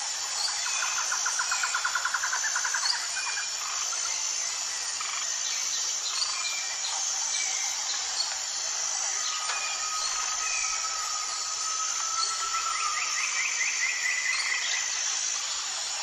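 Birds calling over a steady chorus of insects. A rapid trill comes about half a second in, short chirps are scattered throughout, a long whistled note rises slightly about ten seconds in, and another fast trill comes near the end.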